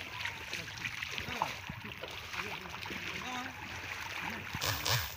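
Shallow muddy water sloshing and splashing as it is stirred up by someone working a fishing net, with a louder splash near the end.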